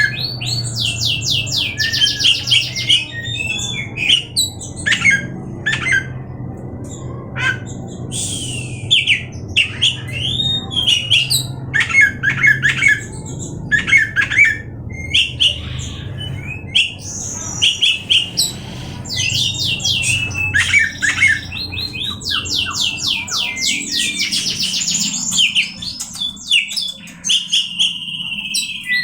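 Oriental magpie-robin (kacer) singing a long, varied song of fast trills, harsh chattering notes and short whistled slurs, with brief pauses between phrases, over a steady low hum.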